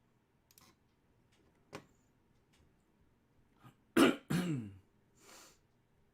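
A person coughing and clearing their throat: a sharp cough about four seconds in, then a short falling grunt and a softer breathy rasp. A few faint clicks come before it.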